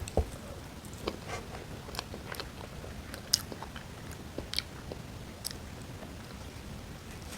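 Close-miked eating sounds: biting and chewing, with a dull thump just after the start and a scattering of small, sharp, crisp clicks.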